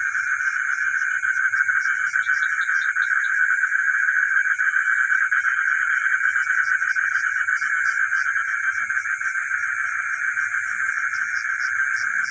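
Night chorus of frogs calling together in a dense, rapidly pulsing trill, with a steady high-pitched hiss above it. A quick run of about five short chirps comes about two seconds in.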